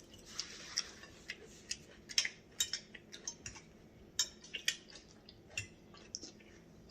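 Eating sounds at the table: irregular light clicks and clinks of cutlery and dishes, a few a second, with faint chewing.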